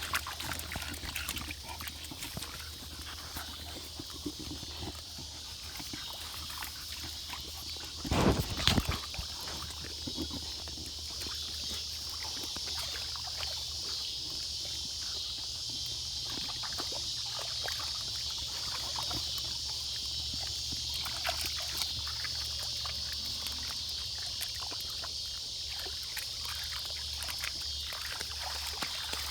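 Dogs moving about outdoors over a steady high-pitched drone and a low hum, with small scattered clicks and one loud bump about eight seconds in.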